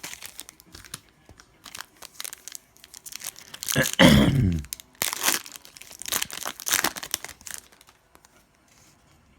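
Foil trading-card pack wrapper being torn and crinkled, in scattered rustles and rips that stop about eight seconds in. A short voiced sound about four seconds in is the loudest moment.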